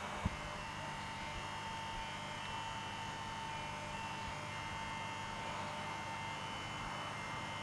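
Steady electrical hum with a constant high whine-like tone and a noisy hiss beneath it, with one short click just after the start.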